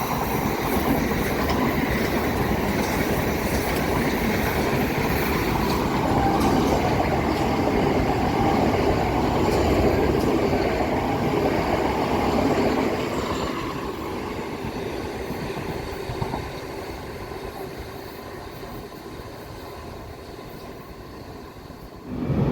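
A train running along the rails past the station, a steady rumble of wheels and rail noise, loud for about the first thirteen seconds and then fading away.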